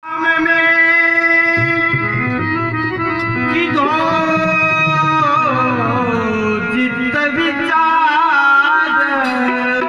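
Haveli sangit devotional song: a harmonium holds a steady chord, and from about three and a half seconds in a male voice sings a long, wavering, ornamented melodic line over it.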